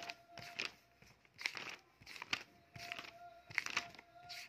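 Paper pages of a printed book being turned: a series of short rustling swishes. A faint steady tone comes and goes behind them.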